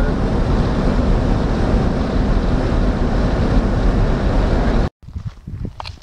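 Steady road and engine noise with wind rush inside a moving vehicle. It cuts off suddenly about five seconds in, followed by footsteps on gravel.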